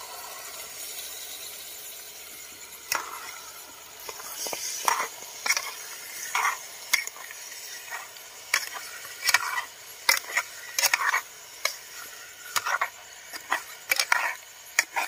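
Meat stir-frying in a pan: a steady sizzle, then from about three seconds in, a utensil scraping and knocking against the pan in quick, irregular strokes.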